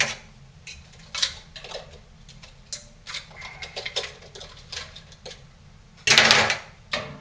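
A metal cooking-pot lid clinking and knocking as it is fitted onto a steaming pot, with a louder, longer clatter about six seconds in.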